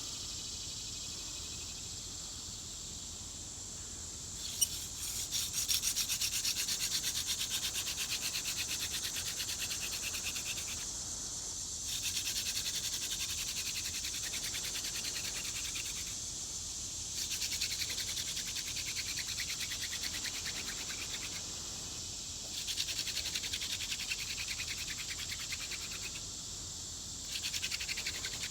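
Hand drill: a horseweed spindle spun back and forth between the palms, its tip rubbing into a tulip poplar fireboard with a fast, hissing friction rub. It comes in bouts of about five seconds from about four seconds in, with a brief pause between bouts as the hands go back to the top of the spindle. A steady chirring of crickets runs underneath.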